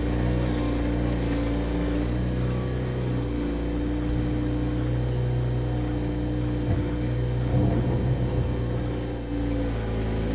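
Bobcat 642 skid-steer loader's engine running steadily as it works, with a brief cluster of knocks and rattles about three quarters of the way through.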